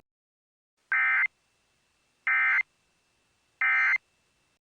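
Emergency Alert System end-of-message data bursts: three short warbling digital screeches, each about a third of a second long and about a second and a third apart, signalling the end of the alert.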